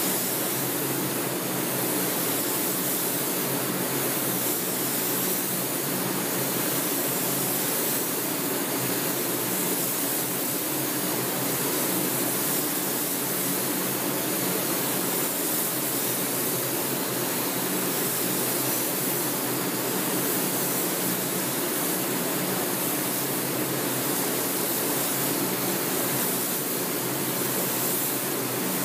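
Steady hiss of compressed air through a gravity-feed spray gun applying automotive paint, over the even rush of paint-booth ventilation with a faint low hum.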